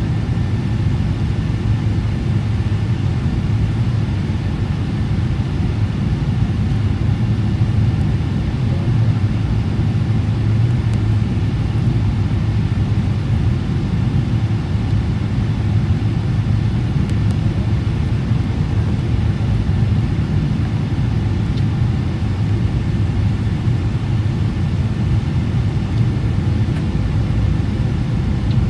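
Cabin noise of a Boeing 777-300ER on final approach, heard from a seat over the wing: a steady low drone from its GE90-115B turbofans and the airflow, with a few faint steady tones above it.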